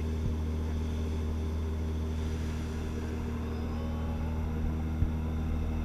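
Tour ferry's engines running steadily under way, a deep, even drone, with a brief knock about five seconds in.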